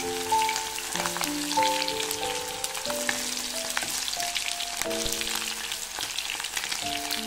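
Chicken wings frying in hot oil in a metal wok: a steady sizzle full of small crackles and pops. Soft background music with a slow, simple melody plays over it.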